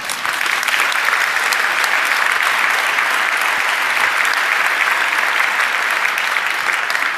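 Audience applauding: dense, steady clapping that breaks out at the start.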